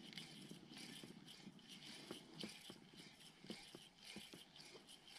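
Near silence with faint, scattered clicks and rustles of a spinning reel being cranked as a lure is retrieved.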